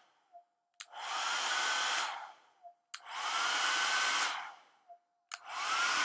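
Handheld hair dryer switched on and off three times: each time a click, the motor whining up in pitch to full speed and blowing for about a second and a half, then winding down.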